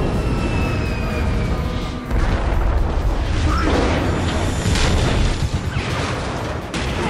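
Action-film battle soundtrack: explosions and heavy booms over a film score.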